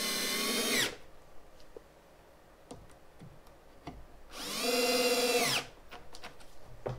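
Festool CXS cordless drill-driver driving screws through a drawer slide's mounting holes into a drawer box: two short motor runs about four seconds apart, the pitch dropping at the end of each as the screw seats. Faint clicks between the runs.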